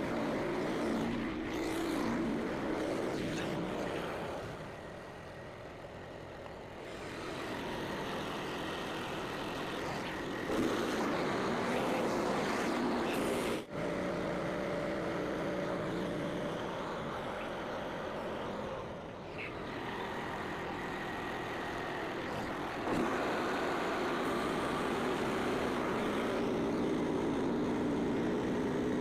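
Gas engine of a portable bandsaw mill running steadily while the blade cuts through a beech log. The level sags twice and there is one brief sudden break about two-thirds of the way through.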